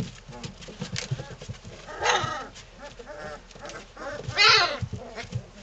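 Three-week-old Belgian Malinois puppies squealing and yelping as they play-fight, with smaller squeaks and low growls between. Two louder squeals stand out, one about two seconds in and a louder, higher one about four and a half seconds in.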